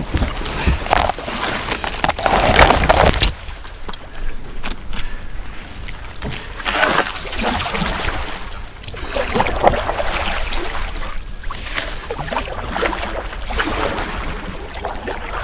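Kayak paddle strokes dipping and splashing in river water, one surge of water noise every second or two. Wind rumbles on the microphone for the first few seconds, then stops abruptly.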